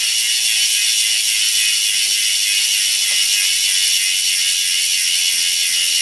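Rear freehub of a road bike ratcheting in a rapid, steady buzz as the wheel spins freely in the stand. It cuts off suddenly at the very end.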